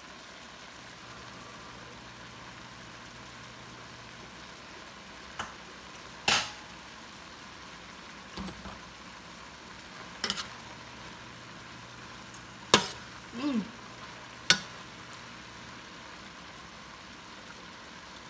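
Cabbage and sausage sizzling quietly in a stainless steel skillet, with a handful of sharp clinks of a utensil against the pan as a taste is scooped out, the two loudest about two-thirds of the way through.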